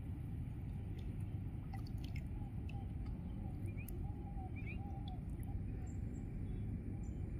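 Faint dripping and sloshing of water as a fishing net is handled in the water, over a steady low rumble, with a few faint high chirps around the middle.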